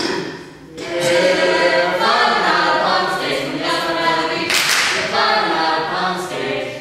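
A small mixed group of young men and women singing an unaccompanied action song together. There is a brief noisy burst about two-thirds of the way through.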